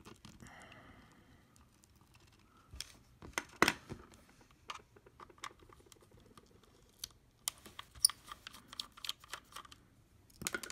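Screwdriver clicking and scraping against the plastic underside of a Logitech M570 trackball as its screws are worked out: irregular small clicks, with a louder cluster about three and a half seconds in and a scatter of lighter ones near the end.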